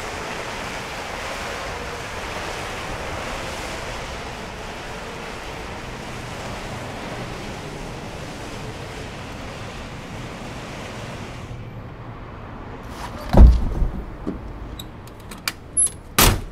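A steady rushing outdoor noise that cuts out about twelve seconds in. Then a single heavy, deep thump, followed by a few short sharp clicks and knocks.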